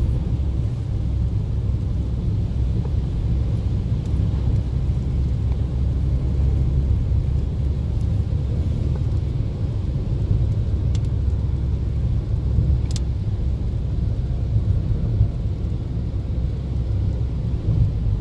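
Steady low rumble of a car's engine and tyres heard from inside the cabin, driving on a wet road, with a few faint clicks.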